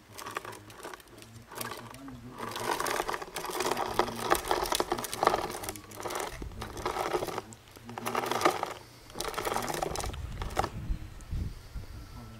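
Hard plastic wheels of a toddler's ride-on toy rattling over concrete paving blocks, in several spurts of one to three seconds as the child pushes it along. The rattling stops near the end.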